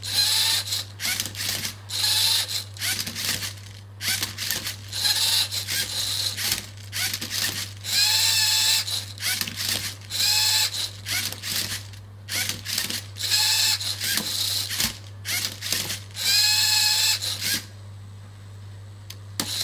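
LEGO Mindstorms servo motors of a MindCuber robot whirring in a rapid series of short bursts as the arm tilts the Rubik's Cube and the turntable rotates it, one move after another. The whine rises and falls in pitch as each move starts and stops, with mechanical clicks between moves. The motors fall silent about 18 seconds in.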